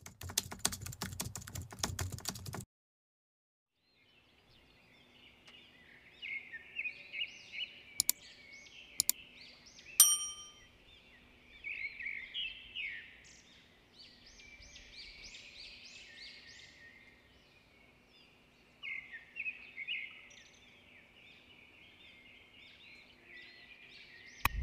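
A rapid clattering of clicks for about two and a half seconds. After a pause, birds chirp over a long stretch. About eight and nine seconds in come two sharp mouse-click sounds, then a single bell-like notification ding: the click-and-ding sound effects of an animated subscribe button.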